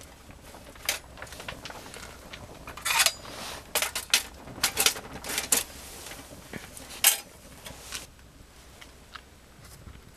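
A series of light metallic clicks and clinks as multimeter test probes and their leads are handled against the metal generator module of a gasifying stove: one click about a second in, a quick run of them in the middle, and a last, loudest click a little later, over a low steady hum.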